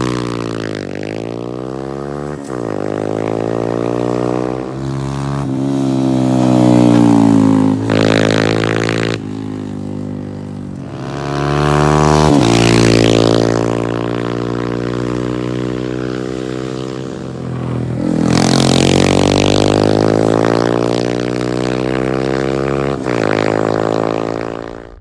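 2019 Honda Monkey's single-cylinder four-stroke engine through a Yoshimura Straight Cyclone exhaust, ridden hard on track: the engine note climbs again and again and drops back at each gear change. It is loudest as the bike passes close, about twelve seconds in and again after about eighteen seconds.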